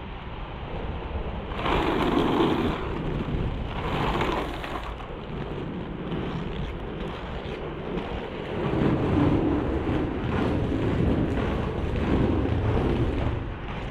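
FR325 inline skate wheels rolling over pavement, a steady rush and rumble with wind buffeting the microphone, and louder surges about two and four seconds in. The rolling grows louder and fuller in the second half, inside a concrete underpass.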